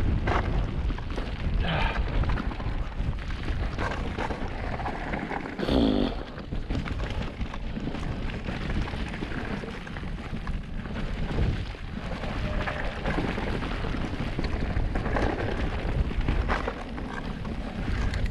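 Strong wind buffeting the action camera's microphone as a heavy, continuous low rumble, with scattered knocks and rattles over it and one short pitched squeal about six seconds in.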